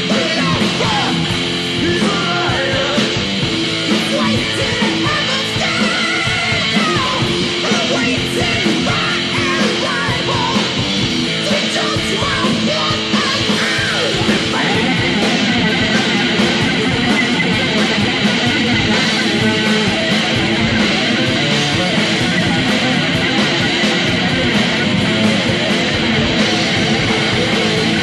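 Technical thrash metal from a 1988 demo recording: distorted electric guitars and drums playing without a break.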